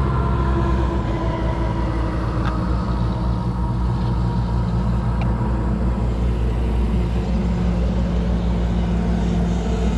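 An engine running steadily at an even speed, loud and unchanging, with a couple of faint ticks about two and a half and five seconds in.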